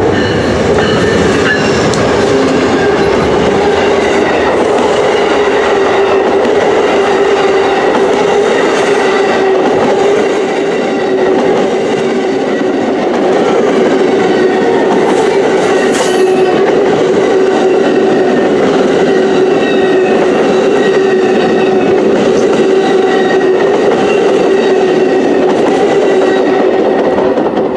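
Amtrak passenger train passing close by, its locomotive and then a long string of stainless-steel cars rolling past. The rail noise is loud and steady, with a steady hum running through it.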